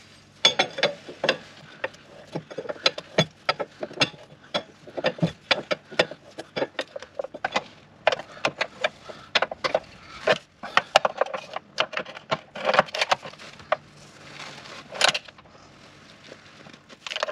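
Socket ratchet clicking in short runs as it is swung back and forth to tighten the lower control arm bolts, with clinks of the spanner and socket against the metal.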